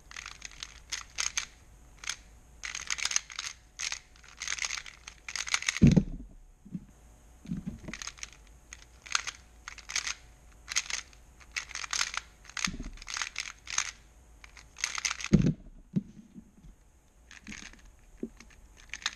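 Angstrom MGC Square-1 puzzle being turned fast in a speedsolve: quick runs of plastic clicking and clacking from the layers and slice. Two heavy thumps, about six seconds in and again near fifteen seconds, with a lighter one shortly before the second.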